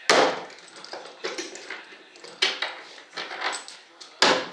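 Metal hand tool clinking and knocking against the bolts along the flange of a fiberglass wing mold during demolding: five or so sharp, irregular knocks, each with a short ring.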